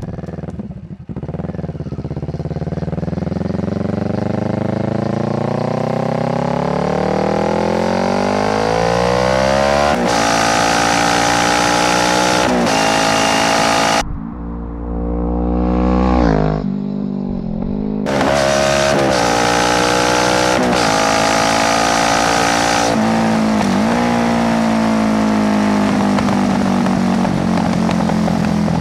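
Kawasaki Z650's parallel-twin engine through an Ixil full exhaust with no dB killer, loud and raw. The revs climb steadily for about ten seconds and hold high. Around the middle the note drops and changes for a few seconds, then comes back high, and near the end the pitch slowly falls as the revs ease off.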